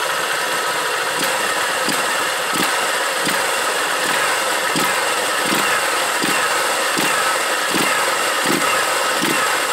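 Honda Titan 150 single-cylinder four-stroke engine revved in short, evenly repeated throttle blips, rising smoothly with no knock from the clutch drum: the misfire from an over-rich main jet has been cured with a smaller 115 jet.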